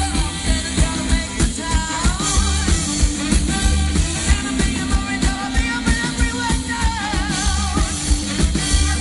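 Live little big band playing swing music: the bass and drums keep a steady beat under a lead melody with a wide vibrato.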